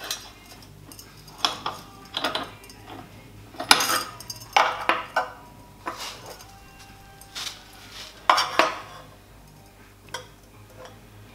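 Stainless steel tube and a steel square clinking and knocking against the metal-cutting bandsaw's steel vise and bed as the tube is turned and seated for an angle cut. The clinks are sharp, irregular and metallic, and some ring briefly.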